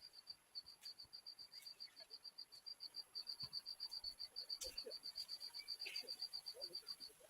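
Faint high chirping from a calling insect, an even pulse of about seven chirps a second that pauses briefly near the start, with a few soft clicks.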